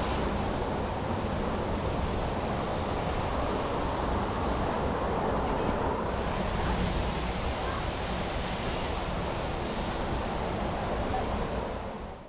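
Steady roar of a waterfall's falling water, an even rushing noise without change.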